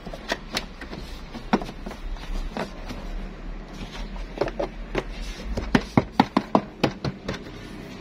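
Sharp clicks and knocks from hands working a truck's door window glass and its rubber run channel. They are scattered at first, then come as a quick run of about eight loud taps in the second half.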